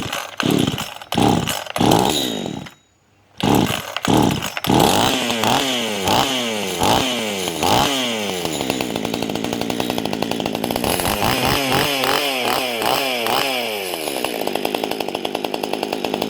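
Small 10-inch two-stroke chainsaw running again now that its dead ignition has been fixed. It is revved in quick throttle blips, with a short break about three seconds in, then held at high revs with a wavering note.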